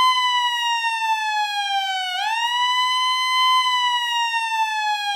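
Ambulance siren wailing. Its pitch slides slowly down, swoops back up about two seconds in, holds, then slides down again.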